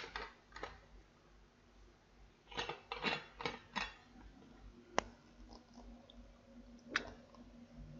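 Scattered sharp clicks and a short run of crackling taps from a drinking bottle being handled, with a single sharp click about five seconds in and another about seven seconds in. A faint steady low hum joins about five seconds in.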